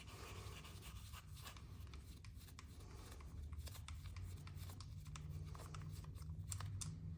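Faint small clicks and rubbing of pre-loosened 8 mm bolts being turned out by hand from a motorcycle's transmission filter cover, over a low steady hum.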